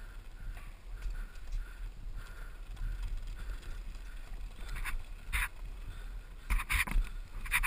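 Mountain bike rolling over a wooden ladder bridge: a steady low rumble from the tyres and bike, with several sharp clattering knocks in the second half.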